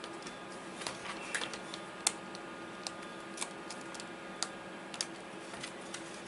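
Irregular light plastic clicks and taps from hands handling an Acer Aspire E 15 laptop's keyboard deck and case while its ribbon cables are being reconnected, over a steady faint hum.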